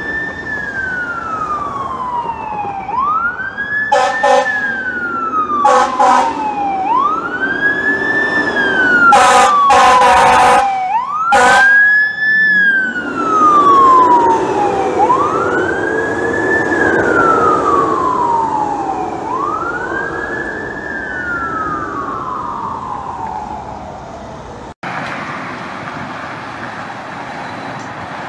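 Fire truck siren wailing in slow sweeps, each falling over a few seconds and then quickly rising again, broken by loud air horn blasts: short ones about 4 and 6 seconds in and a longer pair around 9 to 11 seconds. The truck's engine rises under the siren in the middle. After a cut near the end there is steady street traffic noise.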